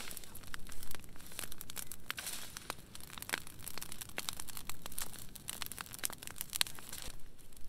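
Burning brush pile crackling, with many sharp irregular pops and snaps of dry wood.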